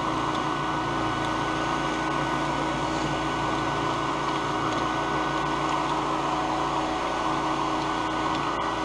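Professional cotton candy machine running: its motor spins the spinner head at a steady speed, giving a constant whirring hum while sugar floss is being spun.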